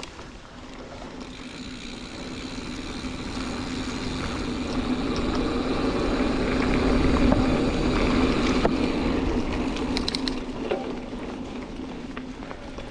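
A Giant Fathom 2 hardtail mountain bike rolling along a dirt trail. Tyre and wind noise swells to a peak about halfway through and then eases off, under a steady buzz from the freewheel hub. A few sharp clicks come near the end.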